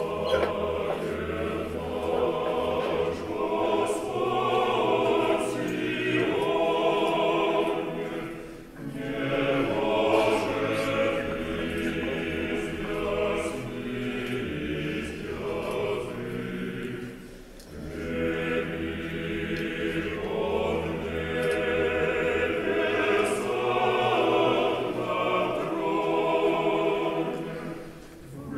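Church choir singing in several voices, in long phrases with brief breaks about eight and seventeen seconds in.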